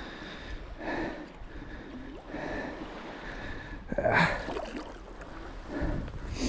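Shallow seawater splashing and sloshing in a few short bursts, the loudest about four seconds in, over low wind rumble on the microphone.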